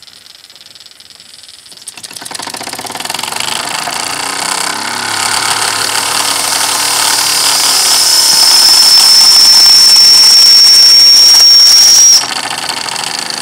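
Wilesco D6 model steam engine, a single-acting oscillating (wobbler) cylinder, catching about two seconds in after the flywheel is turned by hand, then speeding up to a loud, fast run with hissing steam. A high whine rises in over the run, and the sound drops away suddenly near the end.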